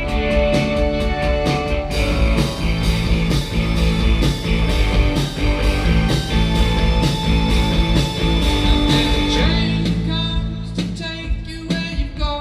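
Live indie band playing a song on drum kit, bass guitar, electric guitar and keyboards. About ten seconds in the band drops back to a sparser, quieter passage.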